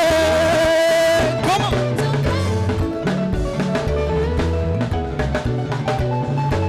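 Live gospel praise band playing an upbeat groove on drum kit and deep bass. A singer's long held note ends about a second in, and the band carries on without singing.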